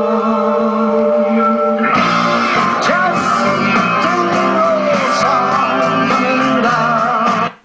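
Music from an FM radio broadcast played through a Yamaha TX-480 stereo tuner: held notes for about two seconds, then an abrupt switch to a rock song with singing and guitar. It cuts off suddenly near the end as the tuner moves off the station.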